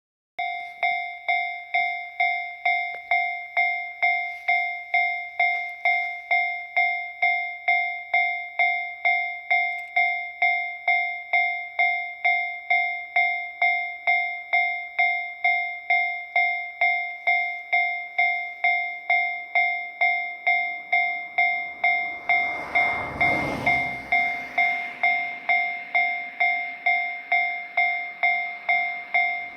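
Japanese railway level crossing alarm ringing its 'kan-kan' warning, starting abruptly about half a second in and striking evenly about one and a half times a second. About three quarters of the way through, the rumble of an approaching train rises under the ringing.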